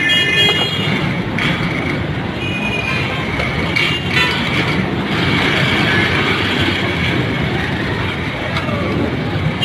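Loud, steady street traffic noise from motor vehicles, with a few brief high-pitched tones near the start and again a few seconds in.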